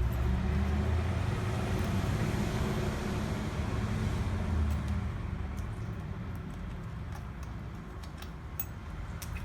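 Low rumble of a passing motor vehicle, strongest in the first few seconds and easing off after about five seconds, with a few light clicks near the end.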